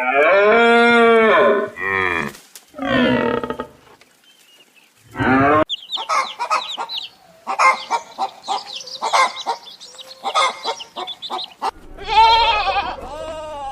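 A cow mooing: a long, loud call at the start and shorter calls after it. A run of quick, choppy calls follows in the middle, and another loud call comes near the end.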